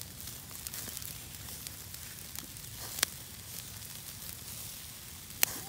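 Open wood fire crackling and hissing as bratwursts sizzle over it on roasting forks. A steady hiss runs under a few sharp pops, one about three seconds in and the loudest near the end.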